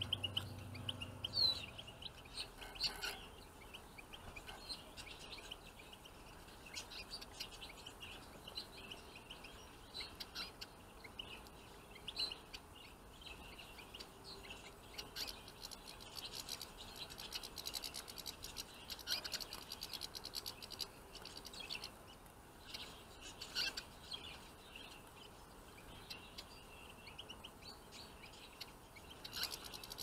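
Goldfinches and siskins chirping and twittering in short, faint high calls scattered throughout, with bits of scratchy rustling among them.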